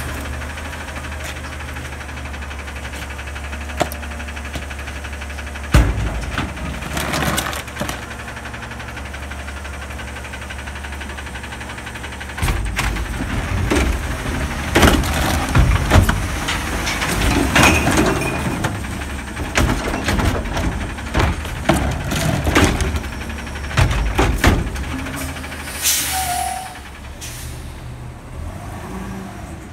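Automated side-loading recycling truck idling with a steady engine hum, then its arm lifts and empties a recycling cart, with several seconds of irregular clattering and banging. Near the end there is a short air hiss and the truck moves off.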